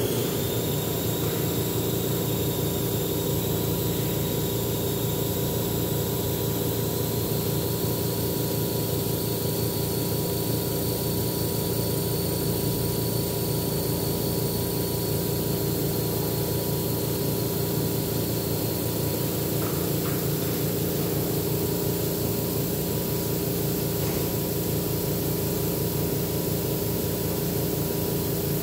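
Air compressor feeding an airbrush, running steadily: an even motor hum with a hiss and a thin high whine that steps slightly up in pitch in the first several seconds.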